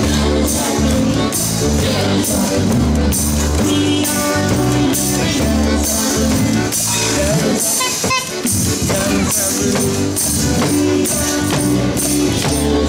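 One-man band playing: accordion melody over a steady beat of bass drum and cymbal, the percussion worked by a foot-pulled cord.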